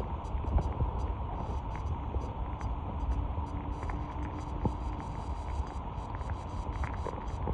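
Danionella, tiny fish, making short sharp clicks at irregular intervals, some in quick runs, over a steady low rumble and hum.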